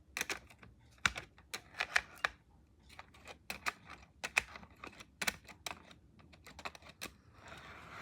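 Irregular run of sharp clicks and taps, about two dozen over seven seconds, like small hard parts being handled. A soft rustle comes in near the end.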